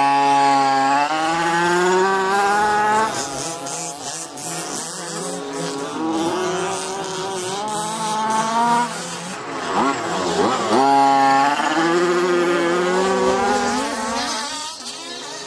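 A radio-controlled buggy's two-stroke engine (Nutech Thunderbolt II with a Jet Pro tuned pipe and stinger) running loudly as the car is driven. The pitch climbs and holds high on several full-throttle runs, dropping off between them as the throttle is let off.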